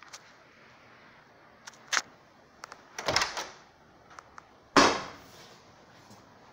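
Scattered knocks and clunks inside a house: a sharp knock about two seconds in, a short rattling clatter about a second later, and the loudest bang near the end with a brief ring after it.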